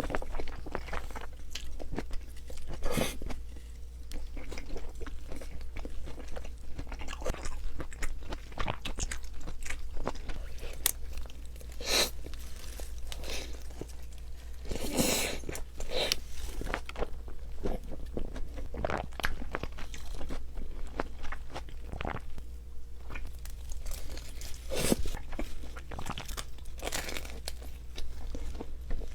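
Close-up eating sounds of pizza: irregular crunchy bites and chewing with wet mouth sounds, some bites louder and crisper than others.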